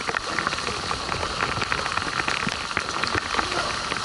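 Rain and sea spray pattering steadily, a dense crackle of small drops hitting close to the microphone.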